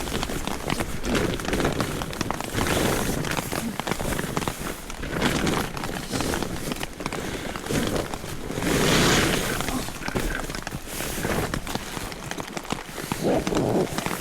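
Rain on a tent mixed with irregular rustling and knocking as the tent fabric and gear are handled. There is a louder swell about nine seconds in.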